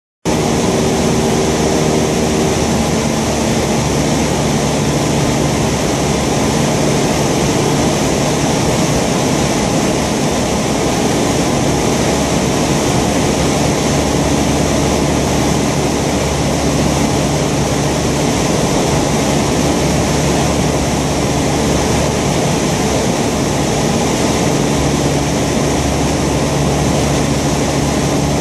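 Thruster T600N microlight's engine and propeller running steadily in flight. The engine note shifts slightly a couple of seconds in and again a few seconds before the end.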